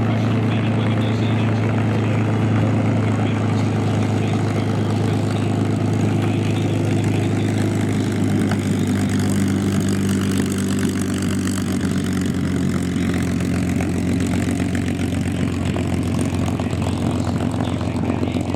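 A propeller airplane's piston engine running steadily: an even, low drone with no rise or fall in pitch.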